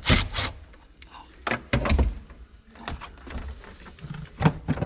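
A cordless driver runs briefly near the start, loosening the battery terminal clamp nut, then scattered clicks and knocks of metal and plastic as the terminal is worked loose by hand to disconnect the car battery.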